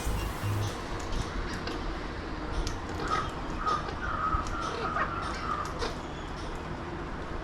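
Harsh bird calls: a run of short, repeated squawks from about three seconds in, over a steady background hiss.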